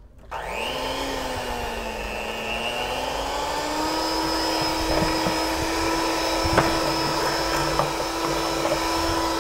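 Electric hand mixer running, its beaters working an egg into creamed butter and sweetener batter until well combined. The motor's whine climbs in pitch over the first few seconds, then holds steady. A sharp click comes about two-thirds of the way through.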